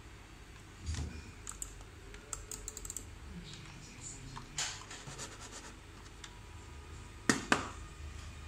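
Keys clicking on a laptop keyboard: scattered taps, a quick run of clicks about two and a half seconds in, and two loud clicks near the end.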